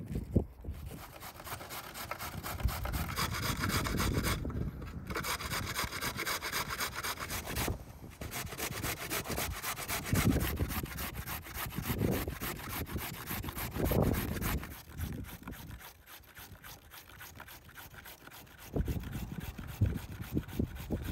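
Fresh carrot being grated on a metal box grater standing on a wooden cutting board: a fast, steady rasping of strokes, broken by two short pauses, with a few dull knocks of the grater and carrot against the board.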